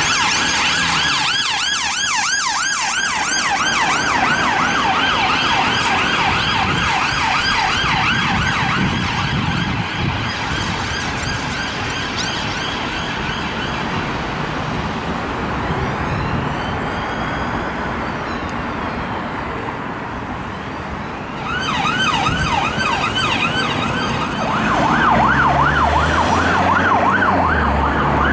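Police car sirens yelping in a fast rise-and-fall, with traffic and engine noise underneath. The yelping stops a little before halfway and a fainter, slower siren sweep is heard. A yelp starts again about three-quarters of the way through and is loudest near the end.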